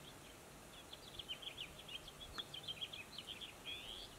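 A small bird singing faintly, a rapid twittering run of short, high chirps that starts about a second in and runs for about three seconds.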